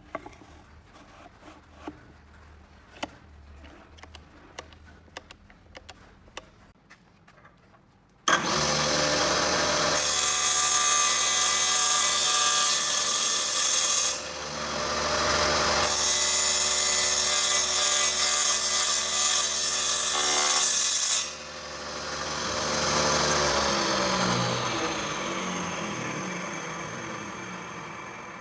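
Light clicks and knocks, then about eight seconds in a power tool's motor starts suddenly and works a piece of wood in two long passes with a short break between. After the second pass the motor is switched off and winds down, its pitch falling.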